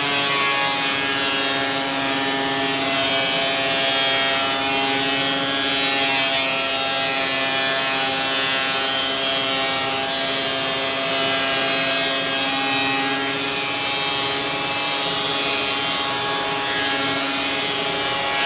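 WEN 6550 thickness planer running steadily with its motor held at a lower, loaded pitch while it planes a board of rough-cut pine: a steady whine over the rush of the cutterhead.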